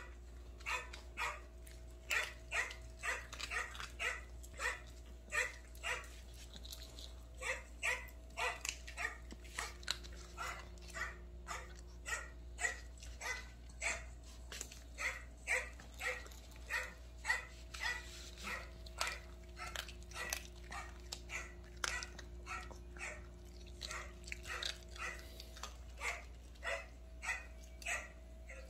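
Small Maltese dog barking over and over in short, sharp barks, nearly two a second, without a break.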